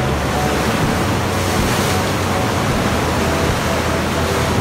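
Sea waves surging against rocks and churning into foam at a blowhole, a steady loud rush of water without breaks.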